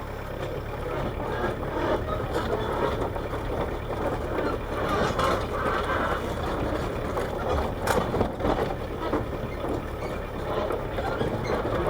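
Kubota KH-90 mini excavator's diesel engine running at idle while the machine is moved on its hand levers, with irregular clanks and clicks from the tracks and moving parts.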